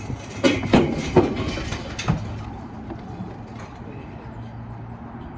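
Loose bricks and masonry knocking and clattering, a handful of irregular hard knocks in the first two seconds, as an old lintel in a brick gable wall is worked loose.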